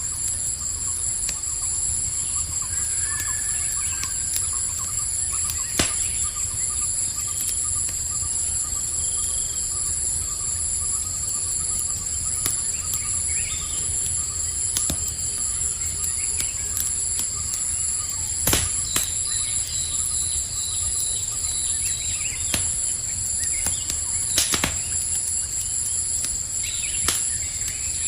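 Campfire burning with a low steady rustle and a few sharp crackling pops, over a constant high-pitched night insect chorus.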